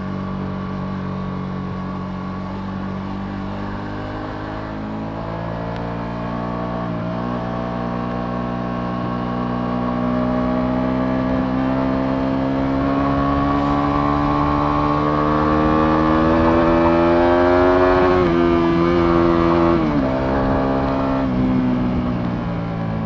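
Ducati Multistrada V2S's V-twin engine pulling steadily, its pitch rising slowly through one long stretch of acceleration. Near the end the pitch falls as the throttle is rolled off.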